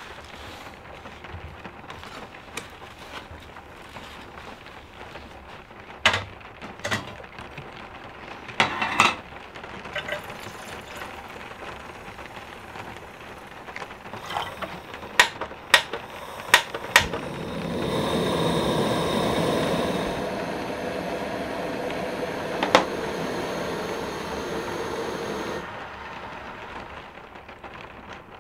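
Kettle and camp-stove handling: several knocks and clatters and a short splash of water from a plastic jug into a small metal kettle, then a run of sharp clicks. After that comes a steady rushing hiss for about eight seconds that stops suddenly near the end.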